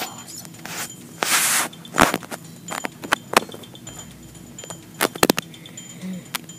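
Hands handling a small plastic toy figure and a round tin on a wooden floor: scattered sharp clicks and taps, with a brief rustle a little over a second in.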